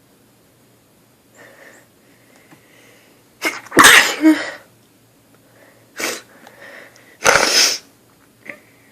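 A woman sneezing: two loud sneezes about three and a half seconds apart, with a shorter burst between them and faint breaths around them. It is a sneezing fit set off by dust.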